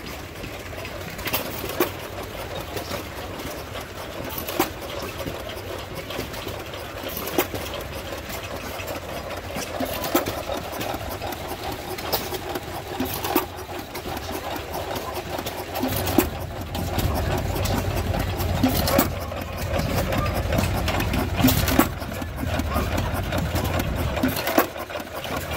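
Vintage hit-and-miss stationary gas engines running, with sharp pops coming at irregular gaps of a second or more as the engines fire and then coast. Under the pops is a steady low running sound that gets louder in the last third.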